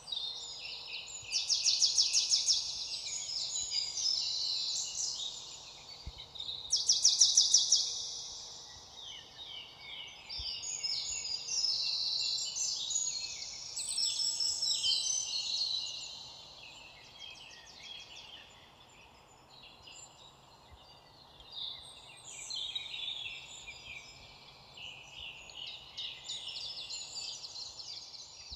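Many songbirds singing at once, their songs and chirps overlapping. Two loud, fast trills stand out, one about a second and a half in and another about seven seconds in, and the singing thins out for a few seconds past the middle.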